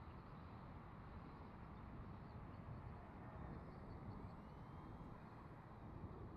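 Faint steady wind rumble on the microphone, with a faint high whine from the E-flite Habu's electric ducted fan rising briefly as the jet passes about four seconds in.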